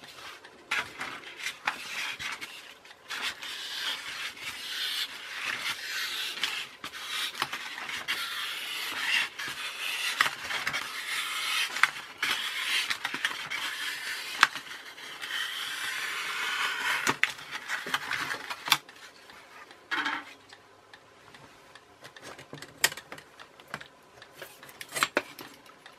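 Snap-off craft knife cutting around the centre of a polystyrene foam plate: the blade scrapes and crackles through the foam almost continuously, stopping about eighteen seconds in. It is followed by a few light knocks as the plate is handled.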